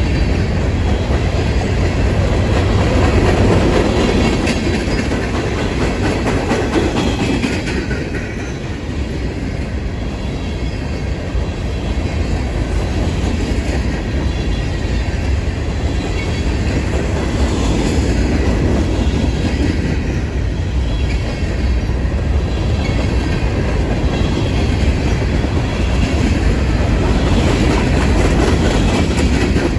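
A train rolling past: a steady, loud rumble of wheels on rail with clickety-clack over the rail joints, swelling and easing slightly as the cars go by.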